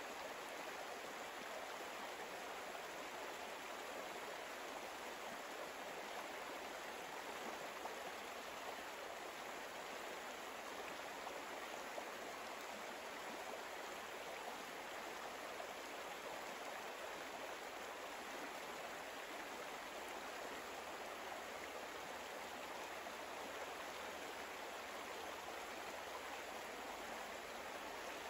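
Steady rushing-water ambience, as of a flowing stream, running evenly without change.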